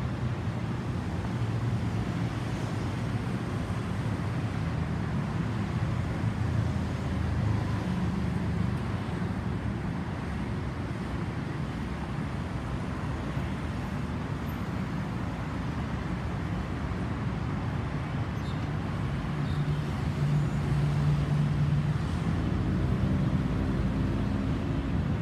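Steady low rumble of a distant Boeing 737-800's CFM56-7B turbofan engines passing high overhead, blended with the hum of road traffic, growing a little louder near the end.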